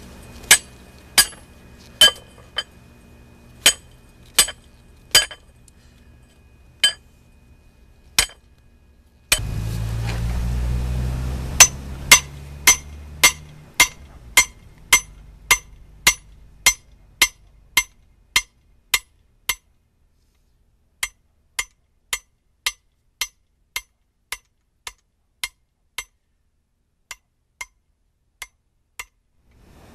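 Blacksmith's hammer striking red-hot steel on an anvil: sharp, ringing metallic blows at a steady pace, about one and a half to two a second. After the first several blows there is a break of about three seconds, then a low rumble for several seconds. The blows carry on evenly and are fainter in the second half.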